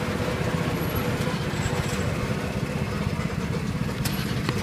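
Steady low engine rumble, like a motor vehicle idling close by, with a faint steady hum above it. A couple of sharp clicks come near the end.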